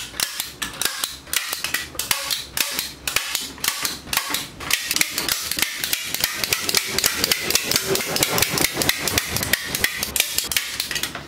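Staple gun firing staples through landscape fabric into a wooden frame in quick succession, several sharp snaps a second.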